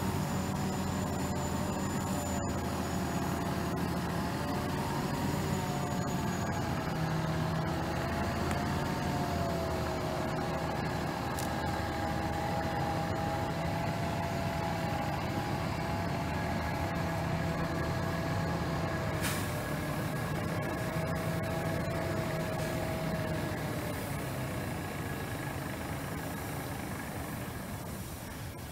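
Heavy tractor-trailer truck's diesel engine running at low speed while pulling a heavily loaded low-bed trailer, with a whine that slowly wavers in pitch. A short hiss of air comes about two-thirds of the way through.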